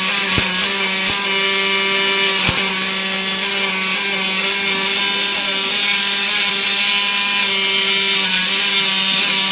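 An automatic MIG welding arc burns steadily as the machine's torch welds an outlet neck onto a steel air-tank dome. It makes a continuous hiss with a few sharp cracks in the first few seconds, over a steady hum.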